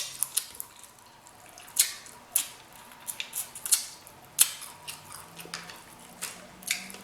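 Close-up wet smacking and chewing of a mouthful of sauce-coated seafood boil: irregular short, sharp clicks, about two a second, with a faint closed-mouth hum near the end.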